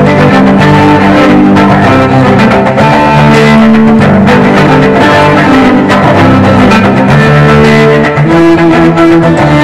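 Instrumental background music with held low notes that change in steps.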